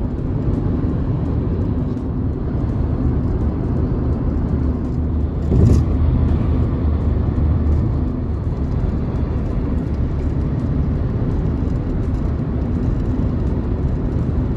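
Steady road and engine noise heard inside a moving car's cabin at highway speed, mostly a low rumble. There is a brief thump about six seconds in.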